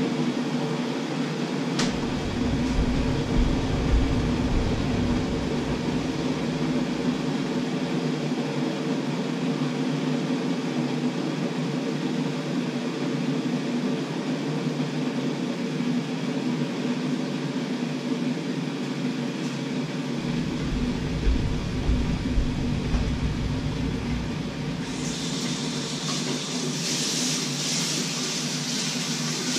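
A steady machine hum from a kitchen appliance or fan. Near the end a hiss starts: tap water running into the sink.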